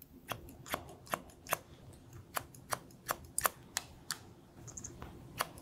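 A run of sharp clicks, about two or three a second with a couple of short pauses, over a low steady hum, cutting off abruptly at the end.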